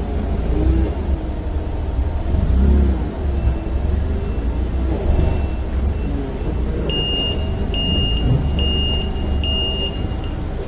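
STILL forklift running with a steady low rumble. From about seven seconds in, its high-pitched warning beeper sounds four or five times in an even rhythm, with fainter beeps a few seconds before.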